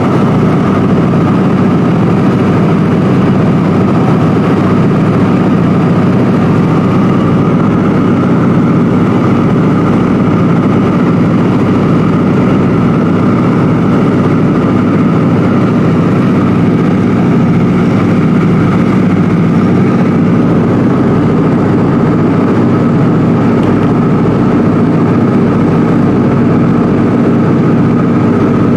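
Ford Tri-Motor's three radial engines and propellers droning steadily in cruise, heard from inside the cabin.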